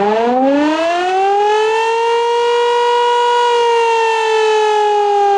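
Civil defense siren winding up. It rises in pitch over the first two seconds, holds a steady wailing tone, then slowly starts to fall about three and a half seconds in.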